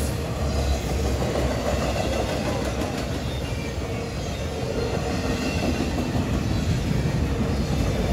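Freight train of empty flat cars rolling past: a steady rumble of steel wheels on the rails.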